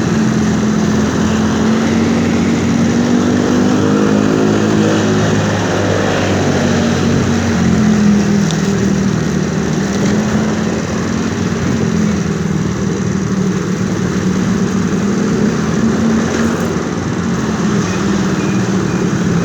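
A motor vehicle's engine running steadily, its pitch wavering up and down a few seconds in, then holding level.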